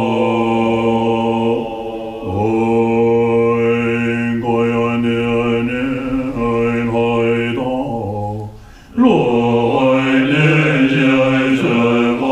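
Tibetan Buddhist monks chanting together in long, low, held tones, with a short pause about two seconds in and a brief break for breath near nine seconds.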